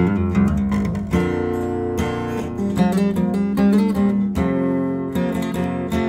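Solo acoustic guitar playing a country instrumental: notes and chords plucked with sharp attacks and left to ring over steady bass notes.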